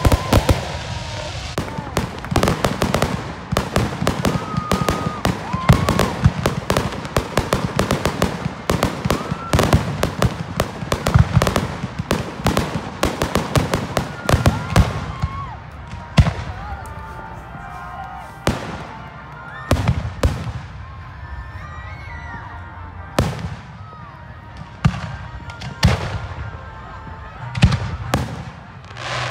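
Aerial fireworks display: a dense barrage of shell bursts and crackling for the first half, thinning to scattered single bangs after about fifteen seconds.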